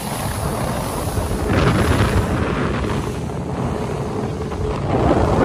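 Speedboat under way: wind buffeting the microphone and water rushing along the hull, with the outboard motor faint underneath. The rush swells about a second and a half in and again near the end.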